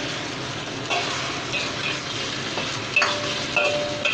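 Instant noodles sizzling in hot oil in a wok, with a metal spatula scraping and clinking against the wok a few times, some strokes leaving a brief ring.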